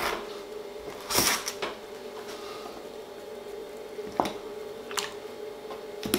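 Stainless-steel ring cutter pressed down through a raw potato on a plastic cutting board: a short squishing scrape about a second in, then a few light taps of the metal ring against the board, over a steady faint hum.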